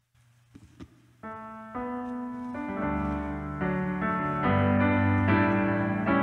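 A few faint knocks, then about a second in a piano starts playing the introduction to a worship song, held chords that grow louder as more notes come in.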